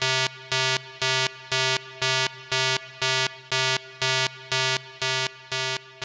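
A synthesized electronic note pulsing on and off about twice a second, the same pitch each time, with the pulses beginning to fade near the end.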